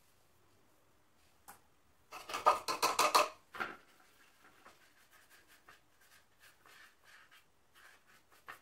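Paintbrush scrubbing and dabbing thick red acrylic paint onto a canvas board: a quick run of loud scratchy strokes about two seconds in, then lighter, scattered brush strokes.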